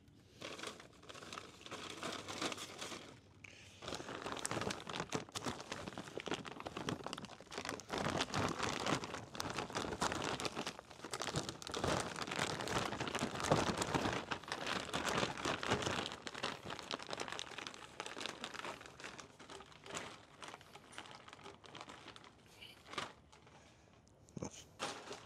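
Crinkling and crumpling of packaging being handled and rummaged through, on and off for about twenty seconds, busiest in the middle and trailing off to a few crackles near the end.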